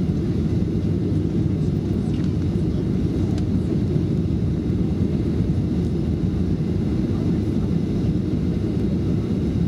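Steady low rumble inside the cabin of a Boeing 737-400 on final approach: engine and airflow noise with the flaps fully extended for landing.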